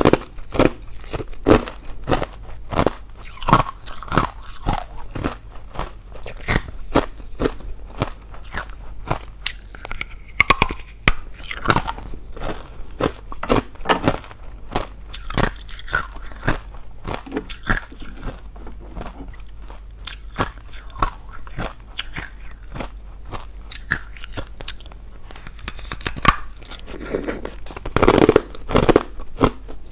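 Close-miked biting and chewing of thin, brittle hollow ice: quick irregular crunches and cracks, with a louder run of crunching near the end.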